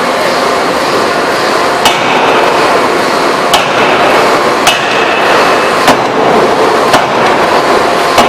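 Electro-hydraulic open die forging hammer striking about six times, roughly a second apart. Each blow gives a sharp metallic clank with a short ring, over a steady loud machine noise.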